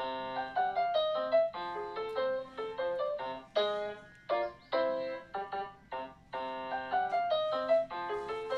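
Background music: a bright melody of short, quickly fading notes.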